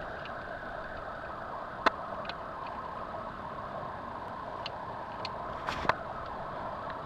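Metal pliers clicking and scraping against an outboard motor's propeller shaft housing while tangled fishing line is picked out of it. There is one sharp click about two seconds in, a few lighter ticks, and a quick cluster of clicks near six seconds, over a steady background noise.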